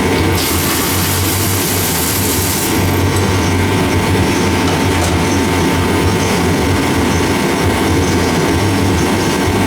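An engine running steadily with a deep hum, with a burst of hiss starting about half a second in and lasting about two seconds.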